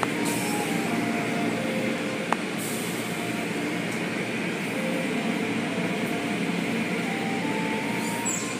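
Automatic car wash heard from inside the car: water spray and spinning blue cloth brushes sweeping over the body and windows in a steady wash. A single sharp tap comes about two seconds in.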